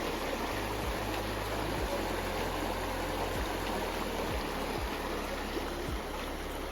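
Running water of a creek, a steady rushing.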